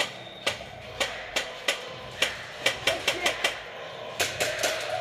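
Airsoft guns firing single shots: about fifteen sharp cracks at uneven spacing, coming quickest a little past the middle.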